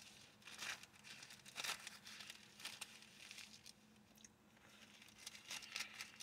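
Faint paper rustling and crinkling in several short bursts, Bible pages being turned to look up a passage, over a faint steady low hum.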